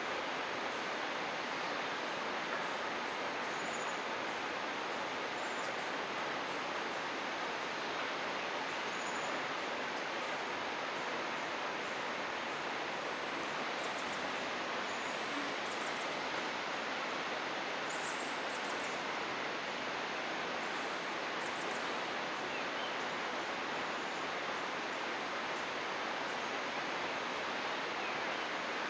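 Steady rush of a flowing mountain stream, with faint, short, high bird chirps now and then over it.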